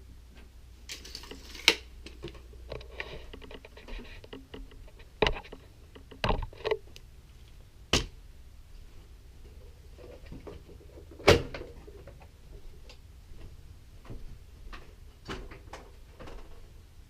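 Handling noise: scattered clicks and knocks of objects being moved about and set down on a hard surface. Sharper knocks come about 5, 6 and 8 seconds in, and the loudest about 11 seconds in.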